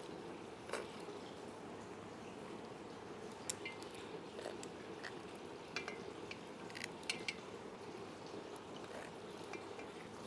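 Faint, scattered clinks and taps of kitchen dishes and utensils, about eight in all and most of them between four and seven and a half seconds in, over a steady low hum.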